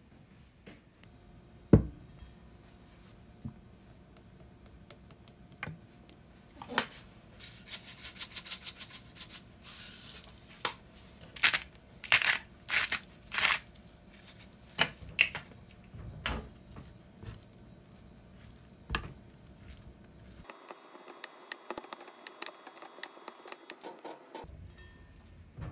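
Kitchen food-preparation noises. There is a sharp knock about two seconds in and scattered clicks of handling wet leaves and a bowl. Then comes a long run of crisp scraping and rattling strokes as sesame seeds and seasonings go onto rice, and rapid small clicks as the rice is mixed near the end.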